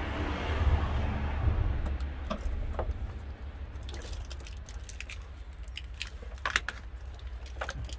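Small sharp plastic clicks and rattles of electrical connectors and a wiring harness being handled, coming thickly in the second half, over a steady low rumble.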